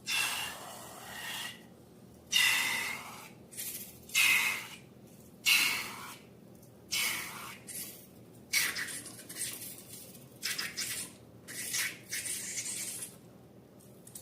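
A series of about ten short hissing, sputtering bursts with brief pauses between them, each under a second or so.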